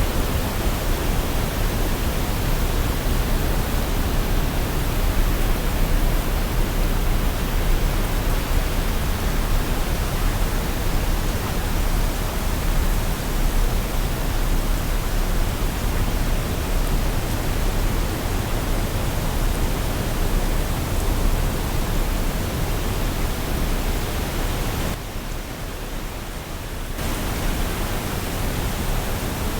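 Waterfall: water falling and splashing in a steady, even rush with a deep rumble underneath. Near the end it briefly drops quieter for about two seconds, then resumes.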